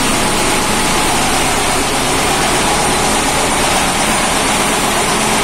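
Sandblasting a motorcycle engine: a steady, loud hiss of compressed air and abrasive, with a low steady hum underneath.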